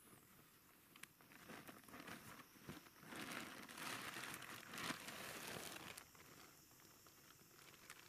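Faint rustling and crinkling with a few small clicks, loudest from about three to six seconds in.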